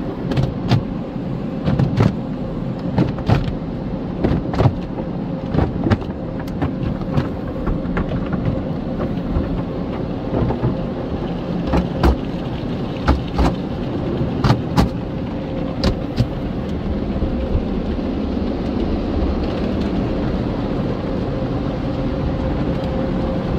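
Automatic tunnel car wash heard from inside the car: a steady rush of water and soap spray on the body, with irregular slaps and thumps against the glass and roof that thin out after about sixteen seconds, over a faint steady hum.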